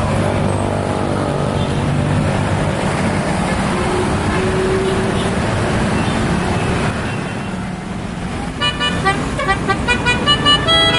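Bus engine running amid loud terminal noise, then about eight seconds in a multi-tone telolet horn plays a quick melody of short notes.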